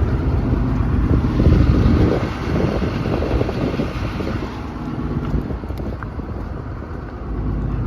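Doosan 255LC-V excavator's diesel engine idling steadily, with wind buffeting the microphone.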